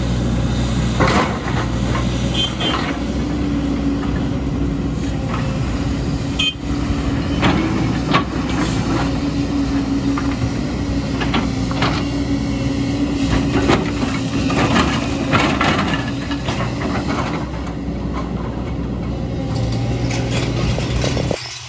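Heavy diesel construction machinery running steadily, with repeated metallic clanks and knocks of the machine at work.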